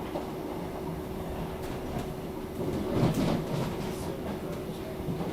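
Interior of a British Rail Class 319 electric multiple unit on the move: steady running noise with a constant hum, and a brief louder clatter about three seconds in.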